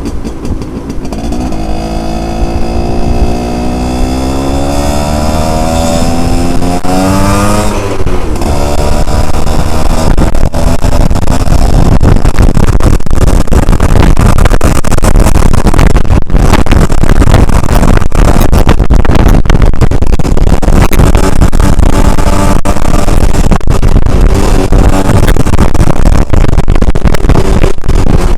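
Yamaha Alfa two-stroke motorcycle engine accelerating, its pitch rising steadily for about eight seconds. Then loud wind buffeting on the microphone at riding speed takes over, with the engine faintly under it.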